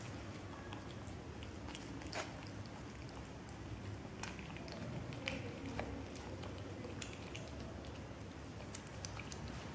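Cat eating wet food from a plastic tub: soft chewing with scattered small clicks and smacks, over a steady background hiss.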